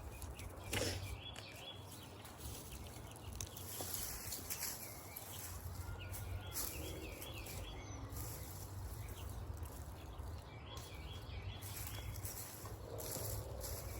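A songbird repeating a short phrase of quick, wavering notes every few seconds over a steady low background rumble, with one sharp knock about a second in.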